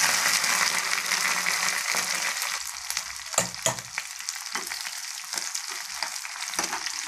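Halved small onions sizzling in hot oil and ghee with a dried-chilli and curry-leaf tempering: a loud hiss at first that eases off. From about halfway through, a spoon stirring the onions, with scrapes and knocks against the pan.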